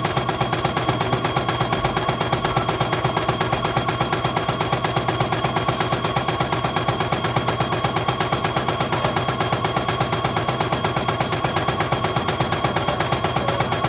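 CNY E900 portable computerized embroidery machine stitching a test design: a rapid, even needle clatter as the hoop steps under the needle.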